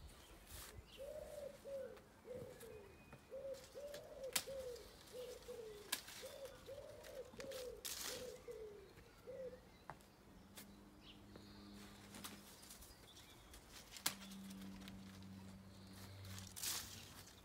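A pigeon cooing in a long run of repeated phrases of soft, arched notes, which stop about halfway through. A few sharp clicks are scattered throughout, and a faint low steady hum comes in during the second half.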